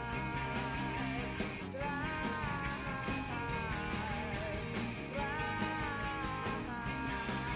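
Background music: a rock song with a melody line over a full, steady accompaniment.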